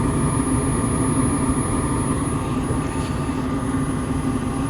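Nordyne gas furnace running steadily with its burners lit and the blower going. It stays on rather than shutting off after a few seconds, so the short cycling is fixed.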